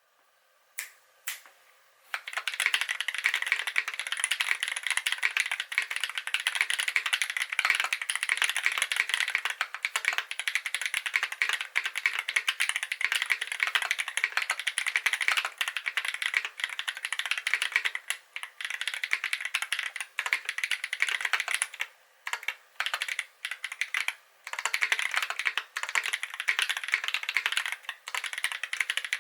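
Fast typing on a KBD8x MKII mechanical keyboard with Holy Panda tactile switches lubed with Tribosys 3204, mounted on a brass plate: two single key presses, then a dense, continuous clatter of keystrokes broken by a few brief pauses.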